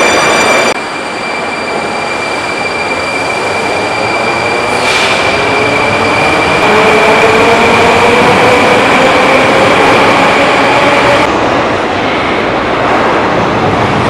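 Metro train running through the station, with a steady high tone and a whine that rises slowly in pitch from about five to eleven seconds in as the train picks up speed.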